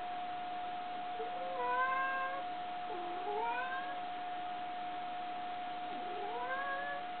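A tabby-and-white domestic cat meows three times: one longer, fairly level meow, then two meows that rise in pitch, the last near the end. The owner hears it as the cat asking for something. A steady thin tone hums underneath.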